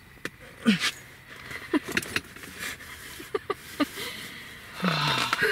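Small clicks, knocks and light rattling of gear being handled, scattered irregularly, with a louder, longer sound about five seconds in that carries a falling vocal tone.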